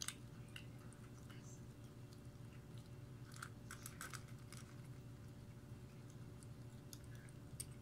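A kitten crunching dry kibble: a scatter of small faint crunches, busiest about halfway through, over a low steady hum.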